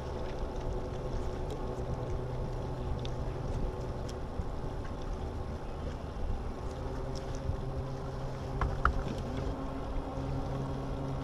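Bass boat's bow-mounted electric trolling motor humming steadily over low wind and water rumble. The hum weakens about halfway through and then picks up again, as the motor's speed is changed.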